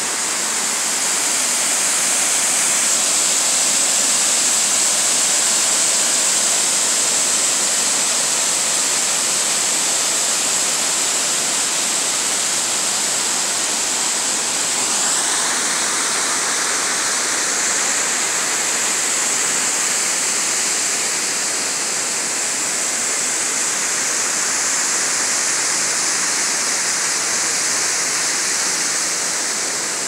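Small waterfall spilling down a rock face into a lake: a steady hiss of falling, splashing water, getting fuller from about halfway through.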